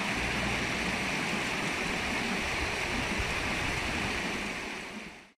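Shallow river running over rocks: a steady rush of water that fades out near the end.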